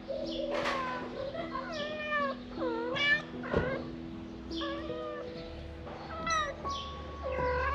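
Cats meowing over and over, a dozen or so short, high-pitched mews that bend up and down in pitch.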